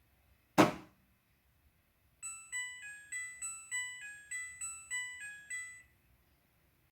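Midea front-loading washing machine: a sharp click, then its electronic end-of-cycle tune, about a dozen short beeps stepping up and down in pitch for three or four seconds, signalling that the wash is finished.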